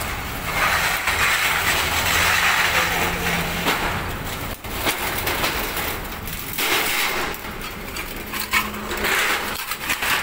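Steel rolling shutter being pulled down, its corrugated slats rattling and grating along the guides for a few seconds. This is followed by a series of sharp metallic clicks and knocks as the shutter settles and is handled.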